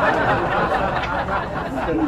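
Indistinct chatter and chuckling: a muffled jumble of voice with no clear words.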